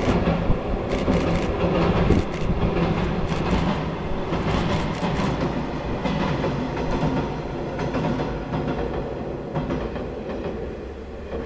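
KiHa 47 diesel railcar crossing a bridge: steady diesel engine drone with wheels clattering over rail joints. The clatter dies out about halfway through and the sound fades as the train moves away.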